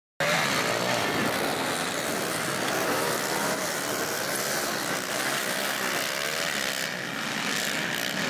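Several pit bike engines running hard in a race, their overlapping pitches rising and falling as the riders rev and shift. The sound cuts in abruptly just after the start.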